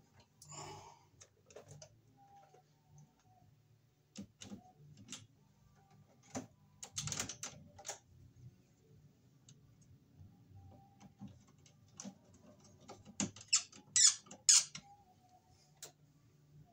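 Scattered clicks, taps and short scrapes of wire and a screwdriver being handled against a metal breaker panel and breakers, with a cluster of sharper clicks near the end.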